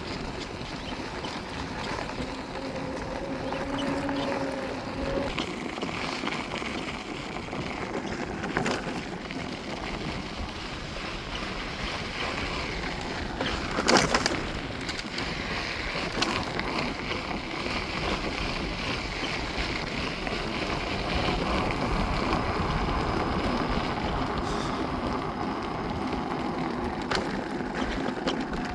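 Wind rushing over the microphone, with tyre and road noise, while riding a Begode Master V3 electric unicycle at speed. Faint tones come and go, and there is one sharp knock about halfway through.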